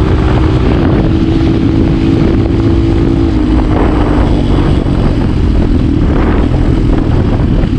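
Hero Honda motorcycle with a modified exhaust, running steadily under way. Its engine note drops slightly about three seconds in.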